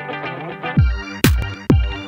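Background music: plucked guitar-like notes, then about three-quarters of a second in an electronic beat starts, with a deep kick drum about twice a second.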